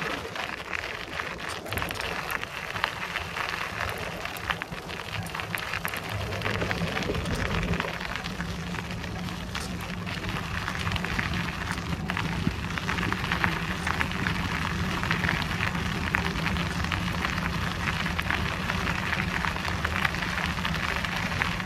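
Bicycle tyres rolling over a gravel forest path: a steady crackle and crunch with many small irregular clicks and rattles, and a low rumble that grows stronger about eight seconds in.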